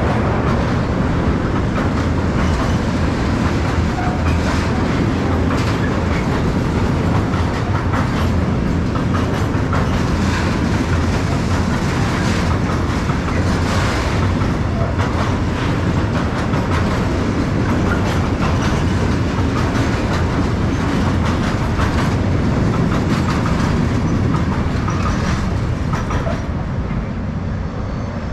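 Freight train's wagons rolling past with a steady rumble and repeated clacks of the wheels over the rail joints, easing slightly near the end.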